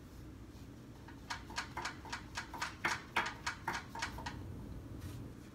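Paintbrush dabbing acrylic paint onto a stretched canvas, a quick run of about a dozen light taps, about four a second, starting about a second in and stopping after about three seconds.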